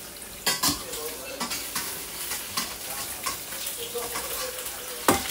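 Steady crackling hiss with a few sharp knocks, a pair about half a second in and a louder one near the end, as a plastic plate is scrubbed with a sponge and knocked against a stainless steel sink.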